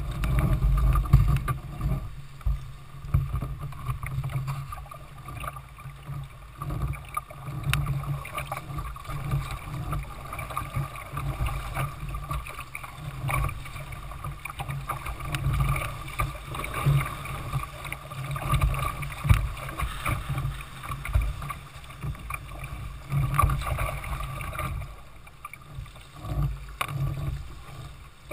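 River water rushing and splashing against the plastic hull of a Jackson Coosa sit-on-top kayak as it runs a riffle. A low, uneven rumble and irregular splashes sit under a steady hiss of moving water.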